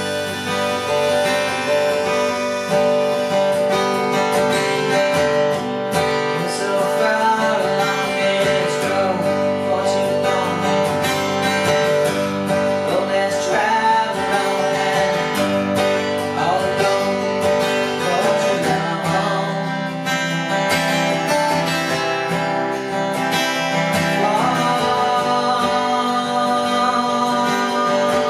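Acoustic guitar strummed steadily, with a man singing over it in a solo performance.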